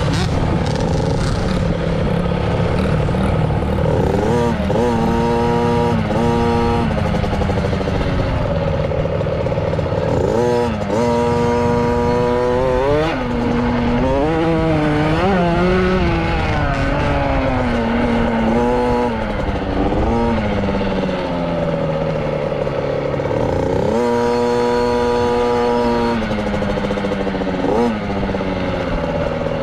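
KTM 50 SX Mini's 49 cc two-stroke single engine revving hard and easing off again and again as the bike is ridden round a dirt motocross track, its pitch climbing with each throttle opening and falling away between. Wind rushes over the microphone throughout.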